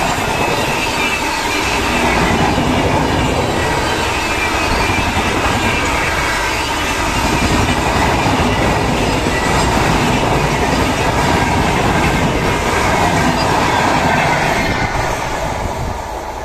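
Express passenger coaches passing at full speed: a steady loud rush of wheels on rail with a faint high wheel squeal, dying away near the end as the last coach goes by.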